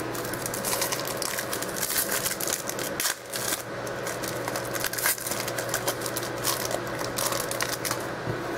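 Trading cards and their packaging being handled: a dense patter of small clicks, rustles and crinkles as cards are flicked and slid and wrappers are crumpled, over a steady low hum.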